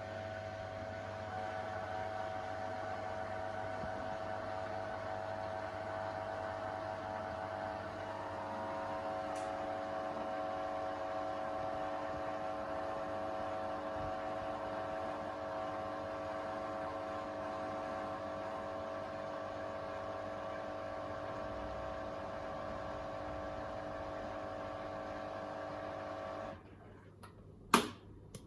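Beko WTK104121A washing machine spinning at high speed, a steady motor whine with a hum beneath. It cuts off suddenly about 26 seconds in, followed by a single sharp knock.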